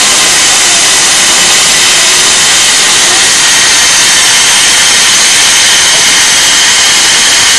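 Steam locomotive hissing loudly and steadily as it lets off steam.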